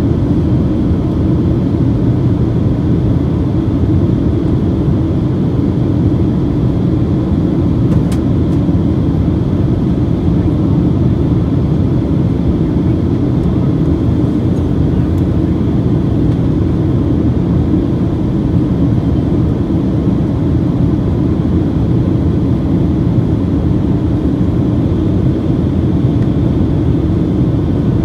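Steady low cabin noise of a Boeing 737-800 in flight, the rush of airflow and the hum of its CFM56 engines heard inside the cabin at a window seat over the wing.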